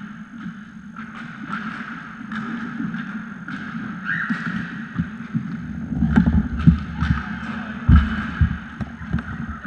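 Inline skate wheels rolling on a sports-hall floor, with frequent clacks of hockey sticks and ball. From about five seconds in, heavier thumps of skates and sticks close by, the loudest near eight seconds.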